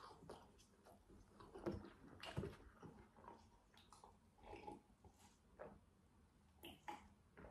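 Faint chewing of french fries, then sips of cola from a paper cup.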